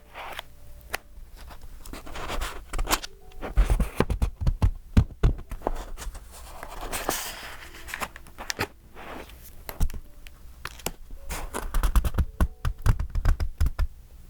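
Pages of a thick, collaged paper journal being turned and handled: crisp paper rustling and crackling, with soft thumps as pages settle, mostly around four to five seconds in and again near the end.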